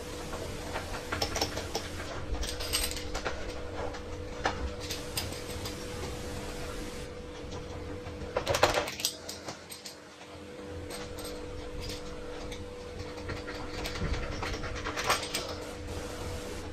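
Kitchen food-preparation handling: scattered light taps and rustles, with a louder rustling swish about eight and a half seconds in, over a steady low hum.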